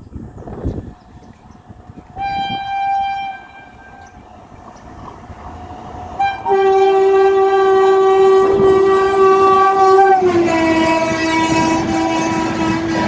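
A WAP-7 electric locomotive's twin-tone horn: a short blast about two seconds in, then a long, loud blast that drops in pitch about ten seconds in as the train passes at speed. The rush and clatter of the passing coaches rise underneath near the end.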